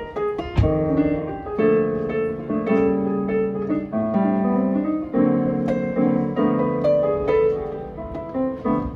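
Digital stage piano played with a piano sound: an instrumental break of full chords changing about once a second, with melody notes on top.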